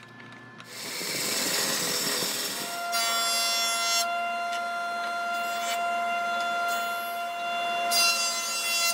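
Woodworking power tools cutting wood: a stretch of rushing cutting noise, then a jointer running with a steady whine, with louder bursts of cutting as boards are fed across its cutterhead, about three seconds in and again near the end.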